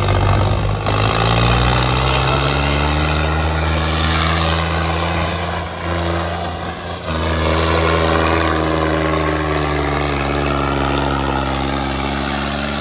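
Tractor diesel engine running hard at high revs. The revs climb about a second in, dip briefly around six to seven seconds in, then pick up and hold again.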